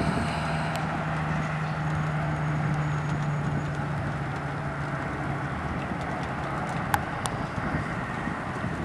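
Steady outdoor background noise with road traffic: a vehicle's low hum through the first half, and a couple of sharp clicks about seven seconds in.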